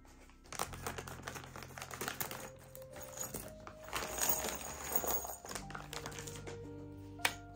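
Plastic bag crinkling as small metal and wooden furniture hardware (screws, cam fittings, dowels) rattles and clinks out of it onto a paper booklet: a quick run of small clicks, busiest in the first two thirds, with one sharp click near the end. Soft background music under it.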